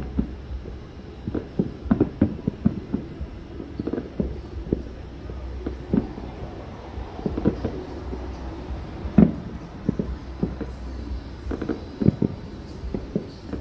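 Distant fireworks going off: a long run of irregular dull pops and booms, the loudest about nine seconds in, over a steady low rumble.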